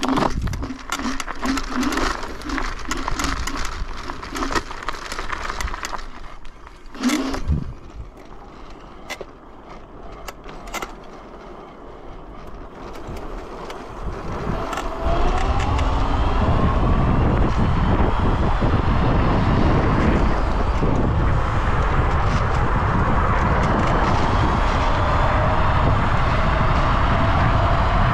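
Yugen RX11 electric scooter riding. In the first half it goes more quietly, with scattered clicks and a louder knock. From about halfway it speeds up: a strong rush of wind on the microphone and a rising whine that then holds steady.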